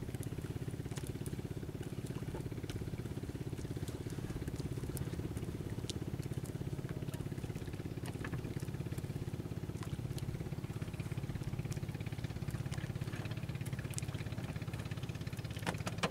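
Small boat engine running steadily at low revs, an even rapid putter.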